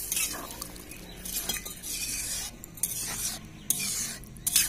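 Steel spatula stirring a watery chickpea, pea and potato curry in a metal kadai: wet scraping with occasional clinks of the spatula against the pan, the sharpest near the end.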